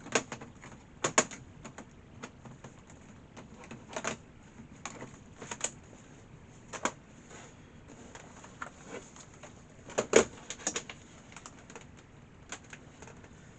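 Scattered clicks and knocks of a plastic laptop being handled as its battery is fitted, the loudest about ten seconds in.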